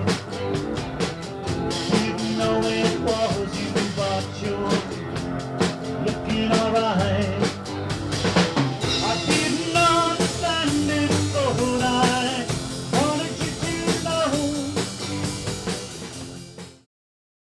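Rock song with singing and a drum kit, fading and then cutting off near the end.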